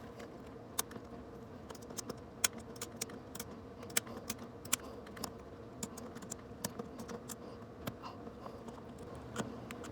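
Irregular small clicks and taps of a metal spring, screwdriver and plastic latch parts being handled while the spring is worked into the latch, over a faint steady hum.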